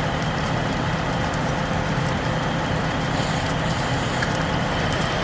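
Fire apparatus engines and pumps running steadily, a low diesel drone under a broad hiss.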